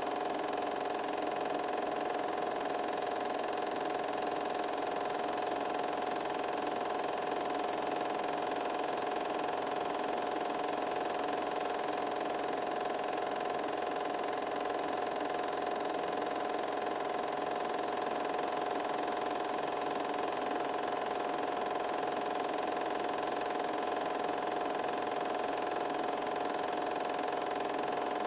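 A small machine running with a steady, unchanging mechanical whir and hum at a fixed pitch.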